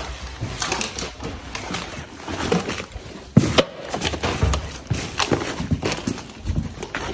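Irregular knocks, clicks and scuffs of people walking and moving about on a hard floor, with one louder knock about three and a half seconds in.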